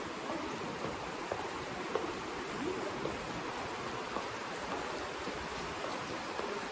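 Kamo River water rushing steadily, an even continuous wash.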